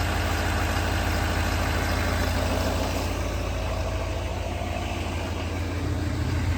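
2018 Chevrolet Silverado 3500's 6.6-litre Duramax V8 turbodiesel idling steadily with an even diesel clatter.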